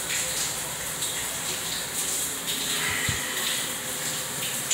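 A steady rushing hiss, with a single soft thump about three seconds in.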